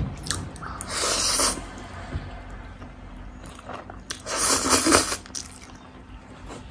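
A person eating saucy spicy instant noodles: two loud wet slurps as noodles are sucked in, about a second in and again about four seconds in, with soft chewing between.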